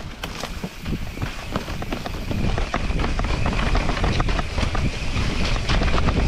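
Santa Cruz Megatower mountain bike descending a dirt singletrack: tyres running over dirt and roots, with many quick clicks and rattles from the bike and wind buffeting the microphone. It gets louder about two seconds in as the speed picks up.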